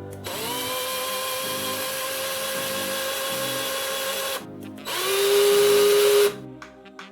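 TACKLIFE PHK06B 18-volt cordless drill running with no load. Its motor whine spins up and holds steady for about four seconds, then stops. It starts again louder and lower in pitch for about a second and a half, then cuts off.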